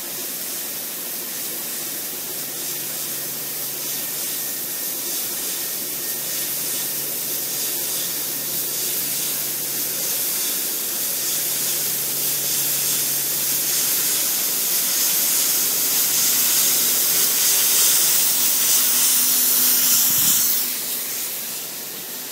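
CNC laser cutter cutting a sheet-metal grill, its cutting head giving a steady high hiss over a faint low hum. The hiss grows slowly louder, then drops off sharply near the end.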